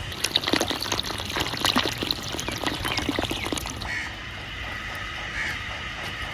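Water pouring and splashing into poultry water drinkers, stopping about four seconds in.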